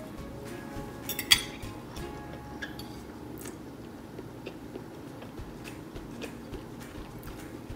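Metal cutlery against a ceramic dinner plate: two sharp clinks about a second in, then a few lighter ticks and clicks of eating at the table.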